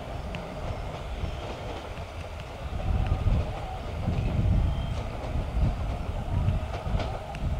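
Sangi Railway 270 series narrow-gauge electric train running, its nose-suspended traction motors giving a heavy low rumble that grows louder about three seconds in, with scattered sharp clicks from wheels and rail.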